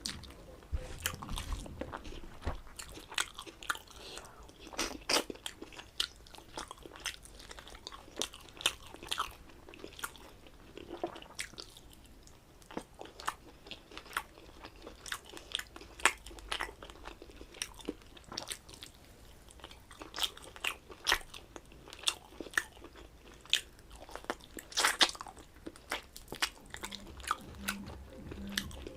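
A person chewing and biting food close to the microphone, eating a meal of rice and mutton curry, heard as an irregular run of short mouth clicks.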